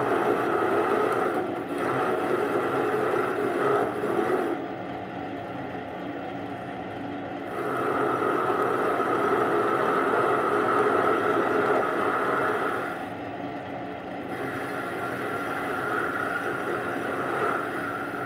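Benchtop metal lathe running while a left-hand cutter faces the end of a spinning workpiece, fed by hand. The cutting noise comes and goes in several stretches as the tool is fed in, with the longest, loudest stretch lasting about five seconds in the middle.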